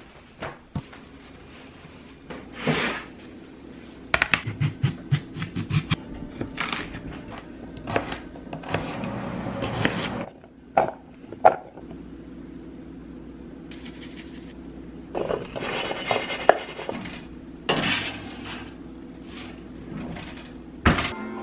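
Kitchen prep sounds: a knife cutting sweet potato on a plastic cutting board, with clinks and knocks of dishes and utensils. A quick run of ticks comes about four seconds in, and an oven door opens with a sharp knock near the end.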